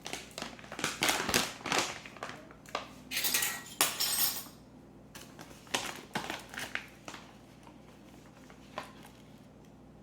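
Kitchen handling sounds: a new bag of arrowroot starch crinkling as it is opened and handled, with clinks of a measuring cup against the bowl. Busy for the first half with a longer crinkle about three seconds in, then only occasional light clicks.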